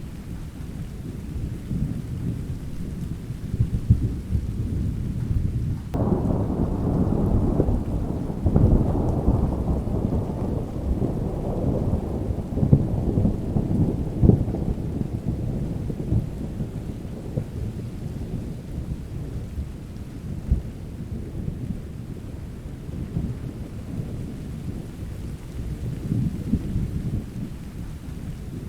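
Steady rain with a low rumble of thunder. About six seconds in a louder peal of thunder breaks in suddenly and rolls on for roughly ten seconds with a few sharp cracks, then fades back into the rain.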